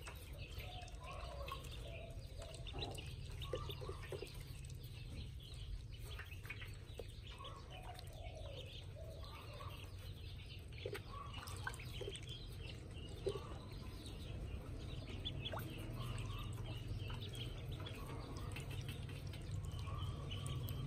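A brood of ducklings peeping in many short, scattered calls, with light splashing and dabbling of water in a metal basin as they swim. A steady low hum lies underneath.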